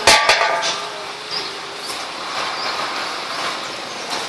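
Metal playground seesaw knocking a few times at the start, then creaking with faint short squeaks as a child rides it, over a steady hiss.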